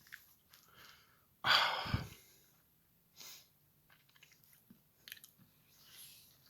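Close-up mouth sounds from a person between sentences: small wet clicks and smacks, and one loud breath about a second and a half in that fades over half a second.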